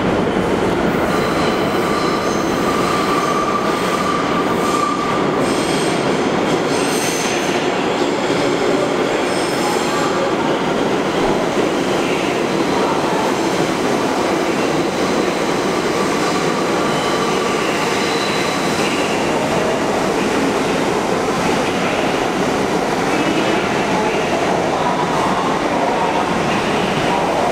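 NYC Subway 1 train of R62A cars pulling into the station, its wheels squealing in high steady tones on the curved track over a heavy rumble of running noise, with some clicking of wheels over rail joints.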